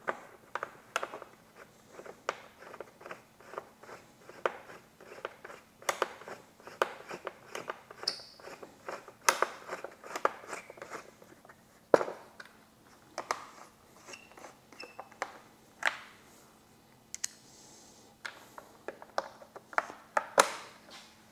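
Plastic speaker pod and its bolts being handled and fitted into a motorcycle inner fairing: irregular clicks, taps and scrapes, with a few sharper knocks.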